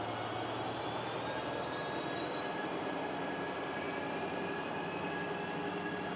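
Amtrak Pacific Surfliner passenger train rolling out of the station, a steady rumble with a faint whine that slowly rises in pitch as it picks up speed.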